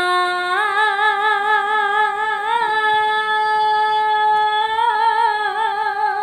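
A woman singing unaccompanied in the southern Vietnamese hò folk style, drawing out long notes with a wide vibrato. The pitch steps up at the start, holds steadier in the middle and dips a little near the end.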